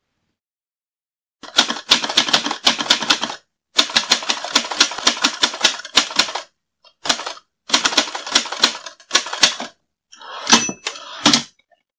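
Manual typewriter typing: fast runs of key strikes in several bursts with short pauses, starting about a second and a half in. Near the end, a short ring and a single louder clack.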